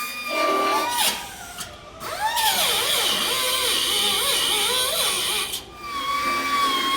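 A high-pitched power tool running with a steady whine. It drops out briefly about two seconds in, then runs with a strong hiss while its pitch dips and rises repeatedly, and settles back to the steady whine near the end.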